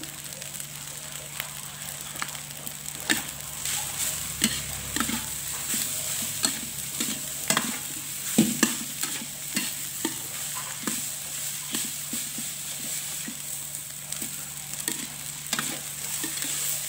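Fried rice sizzling in a metal wok as a metal spatula stirs and tosses it, with a steady frying hiss and irregular scrapes and knocks of the spatula against the pan.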